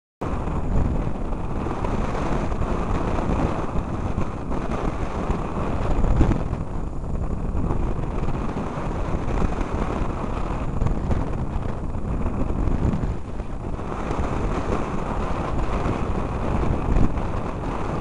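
Strong wind buffeting the microphone of a camera mounted on a hang glider in flight: a low, uneven rumble that swells in gusts now and then.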